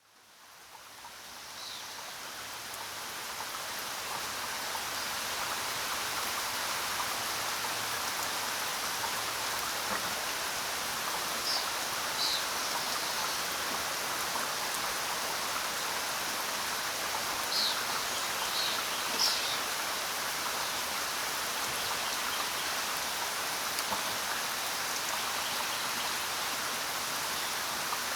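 Steady rainfall, fading in from silence over the first few seconds and then holding even, with a few faint, short, high chirps about halfway through.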